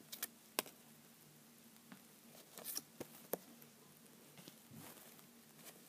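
Football trading cards being handled: a few faint, scattered clicks and taps of card against card, with a small cluster near the start and another about three seconds in.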